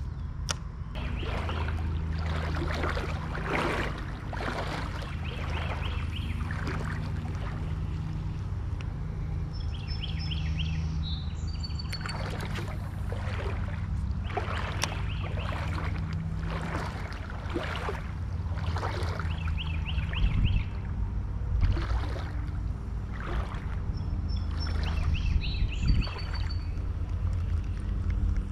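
Water sloshing and splashing around a wader's legs in a shallow creek, in irregular strokes over a steady low rumble. A songbird repeats a short, fast trilled phrase every few seconds.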